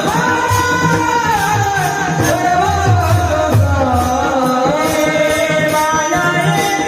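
A voice singing a song in a folk-devotional style, with long held notes that bend and waver in pitch, over a hand-drum beat and light jingling percussion.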